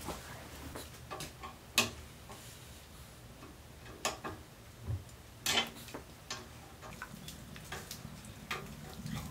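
Wood stove's metal door and latch clicking and clinking as it is opened and worked with a metal tool: a handful of sharp, separate clicks a second or more apart, some with a short ring, the loudest about halfway through.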